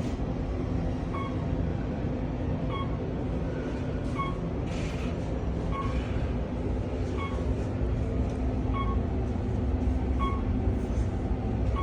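Otis elevator car travelling between floors: a steady low rumble and hum, with a short high beep about every second and a half.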